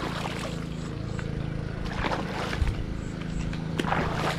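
Steady low drone of a boat's engine running, with a few short sharper noises about two seconds in and again near the end.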